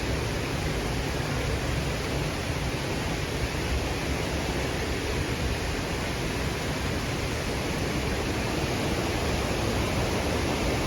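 Waterfall rushing, a steady hiss of falling water with no breaks.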